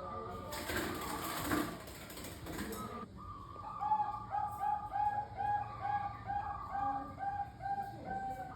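Bangkok-type zebra dove (perkutut) cooing: a run of about ten even notes, some two a second, over a higher repeated note. Near the start, a noisy rush of sound lasting about two and a half seconds partly covers the song.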